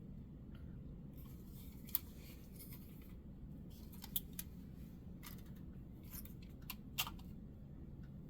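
Scattered light clicks and taps of plastic model freight cars being handled, over a faint steady low hum.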